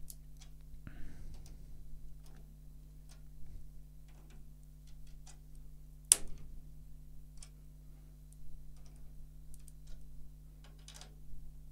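Scattered small clicks and crackles as a drum key turns the tension rods of a snare drum fitted with a new Remo Ambassador Coated batter head, with one sharper crack about six seconds in. The crackling is adhesive inside the new head letting go as it is tensioned, normal for Remo heads.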